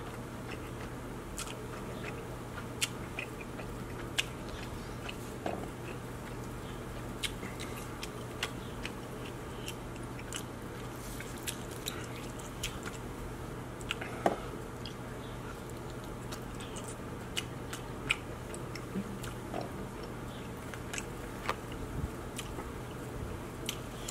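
Close-up eating of king crab: wet chewing and smacking of crab meat, with many short clicks and cracks as the crab leg shells are handled and pulled apart, the sharpest about 14 seconds in. A steady low hum runs underneath.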